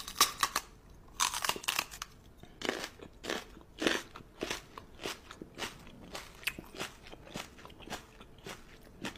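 Close-up crunchy chewing: irregular crisp bites at about two or three a second.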